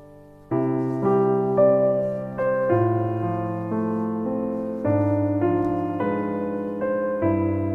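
Background piano music: a gentle melody over held chords, entering about half a second in.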